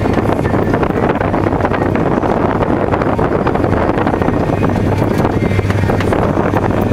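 Miller Nitro self-propelled sprayer's diesel engine running steadily as the machine drives along the field, heard from inside the cab, with a constant low hum under a dense, even drone.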